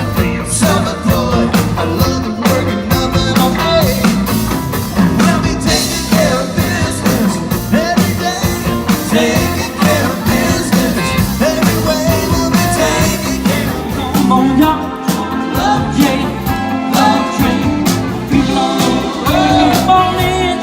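Live band playing an upbeat soul/rock-and-roll number with a steady drum beat, bass and guitar, and a wavering lead line that may be a voice.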